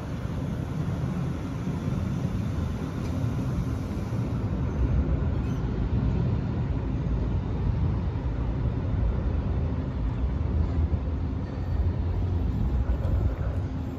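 Siemens Combino low-floor light-rail car rolling past close by, a steady low rumble that builds over the middle of the stretch and drops away near the end.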